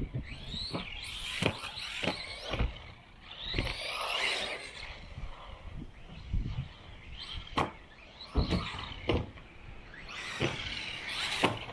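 LC Racing LC12B1 1/12-scale RC buggy's 5300kv brushless motor whining up and down in pitch in repeated bursts as the throttle is worked around the track, with several sharp knocks and clatters from the buggy on the track surface.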